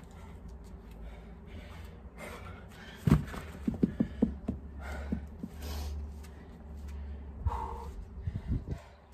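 A heavy thud about three seconds in, then a quick run of knocks, as a pair of dumbbells is set down on the patio mat. Hard breathing from the exerciser follows.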